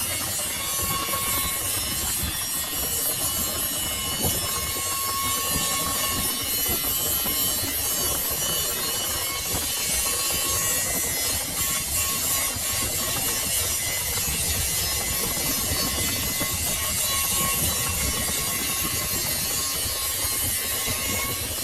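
Lathe machining a steel shaft: a steady scraping cutting noise with faint whining tones over it.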